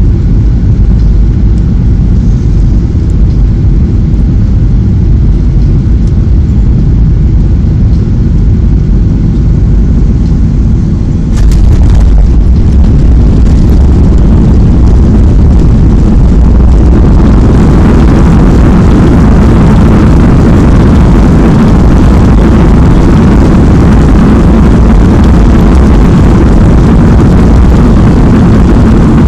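Boeing 737-800 cabin noise on landing: a steady rush of engine and airflow, then a sharp thump about a third of the way in as the wheels touch the runway. From about halfway the CFM56 engines run up louder into a broad rushing roar as the aircraft decelerates on the runway, typical of reverse thrust.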